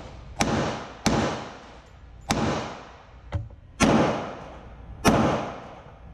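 Pistol, a SIG Sauer P320, fired five times at an uneven pace, each shot a sharp crack with a reverberant tail, plus a fainter crack a little after three seconds.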